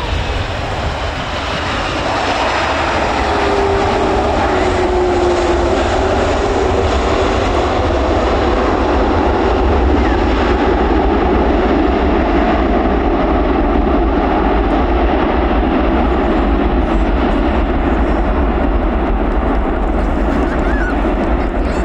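Loud, steady jet engine noise of a Boeing VC-25A (747-200) on its landing approach, swelling about two seconds in and then holding, with a deep rumble underneath and a brief falling whine early on.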